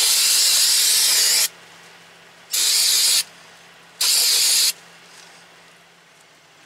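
Aerosol can spraying cleaner onto a brake rotor: a steady hiss that stops about a second and a half in, followed by two short bursts.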